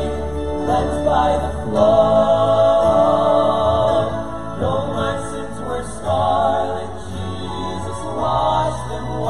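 Five male voices singing together in harmony through handheld microphones, holding long sung notes that change every second or so.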